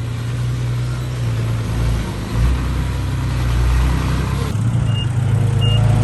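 Dump truck's diesel engine running steadily. Its reversing alarm starts beeping near the end, short high beeps about 0.7 s apart, as the truck backs up.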